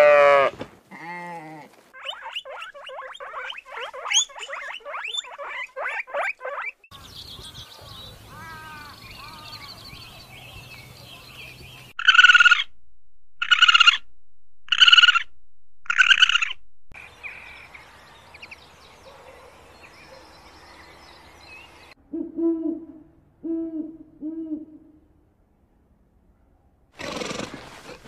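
A string of different animal calls: goats bleating at the start, then a quick run of repeated higher calls, four loud calls about a second apart in the middle, and three short low calls near the end.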